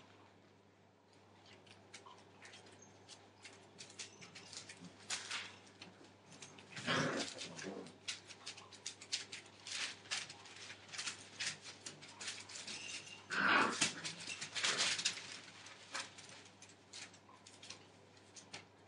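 Five-week-old Entlebucher Mountain Dog puppies at play, with a busy patter of paws and rustling newspaper. Short bursts of puppy vocalising come about seven seconds in and again around fourteen seconds, the second one the loudest.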